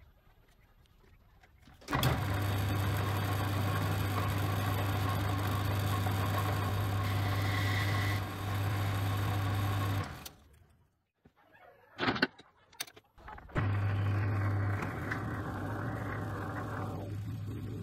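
Metal lathe running with a steady motor hum while it turns a steel workpiece in a four-jaw chuck. The hum comes in suddenly about two seconds in, cuts out near ten seconds, a couple of sharp clicks follow, and it comes back a few seconds later and runs on.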